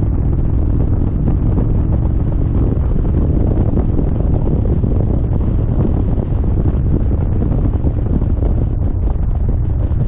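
Heavy wind buffeting the microphone of a moving motorcycle, a steady low rumble with the V-twin engine's drone underneath.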